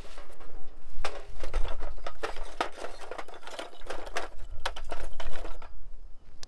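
Rapid, irregular knocks and clatters of camp cooking gear being handled, with low thuds beneath. They stop about five and a half seconds in.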